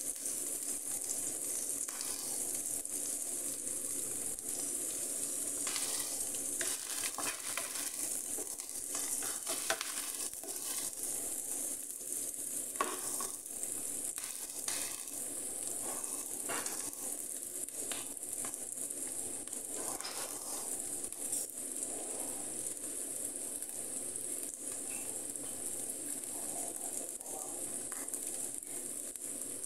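Diced onions sizzling steadily in hot fat in a nonstick frying pan as they sauté toward browning, with scattered crackles through the middle.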